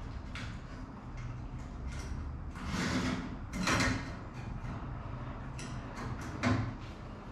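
Handling noise: three short scraping and rubbing sounds as something is worked by hand at a stand, the loudest a little before four seconds in, over a steady low hum.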